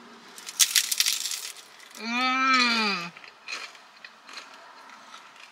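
Crunching bite into a crisp fried rolled taco (corn-tortilla taquito): a rapid crackle about half a second in, lasting about a second. It is followed by a closed-mouth 'mmm' of enjoyment that rises and falls in pitch, then a few soft chewing clicks.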